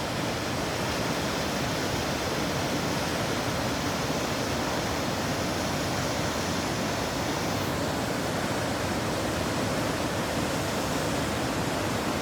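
Waterfall: water rushing steadily, with no breaks.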